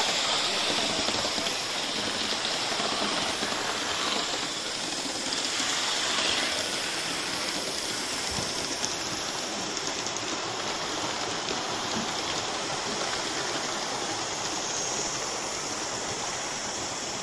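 Live-steam Gauge 1 model steam locomotives running, with a steady rushing hiss of escaping steam.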